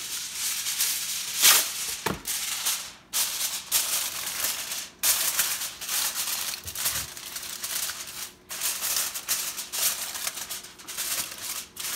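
Aluminium foil crinkling and rustling as a sheet is pressed and crimped down over the rim of a glass baking dish, in irregular crackly spells with short pauses.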